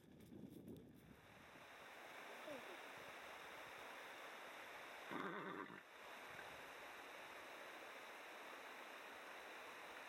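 Faint, steady rushing hiss, with one short pitched cry about five seconds in, the loudest sound here.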